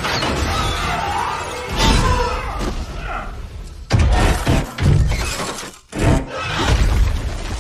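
Film action sound effects: a run of heavy crashes with shattering and breaking, the strongest hits coming about two, four and five seconds in and again just after six, with music underneath.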